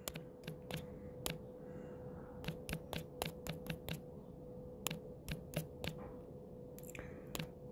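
Short runs of quick, sharp taps as numbers are keyed into a smartphone calculator app, over a faint steady hum.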